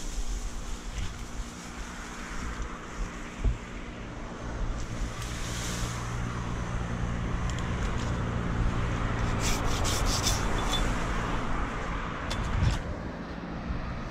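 An engine runs steadily in the background under brushing and rustling of birch branches and leaves being handled. There are a couple of short knocks and a few light clicks of climbing hardware about two-thirds of the way in.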